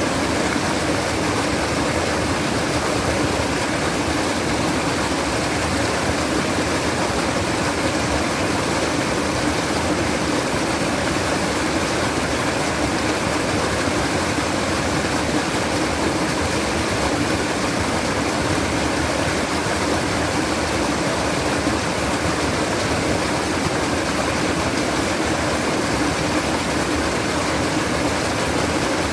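Water running and babbling in a steady, unbroken rush, like a stream or small waterfall.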